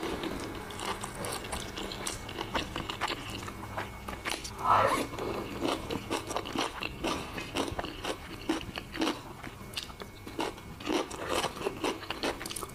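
A person chewing mouthfuls of rice and stir-fried pork with vegetables close to the microphone: many small wet clicks and smacks of the mouth and teeth. About five seconds in there is one louder, brief mouth sound that falls in pitch.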